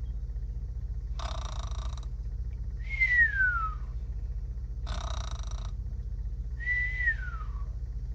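Cartoon snoring sound effect: a short raspy snore on the in-breath, then a falling whistle on the out-breath, repeated twice, over a steady low hum.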